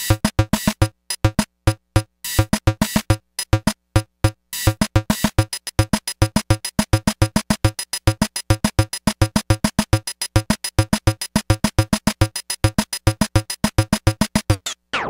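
Electronic intro theme music of short, sharp staccato notes: sparse and syncopated for the first few seconds, then a fast, even run of notes from about four seconds in, cutting off abruptly just before the end.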